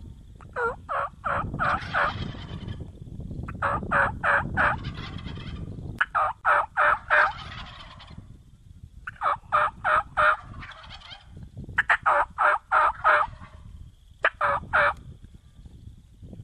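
Wild turkey hens yelping: six series of four to six evenly spaced yelps, about four notes a second, one series every two to three seconds.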